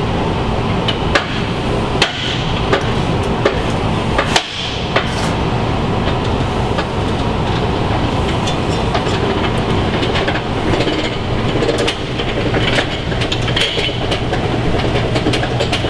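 Irregular metal clicks and knocks from a duct jack and the heater's hanging hardware as the heater is let down slowly onto its supports, over a steady loud rushing hum.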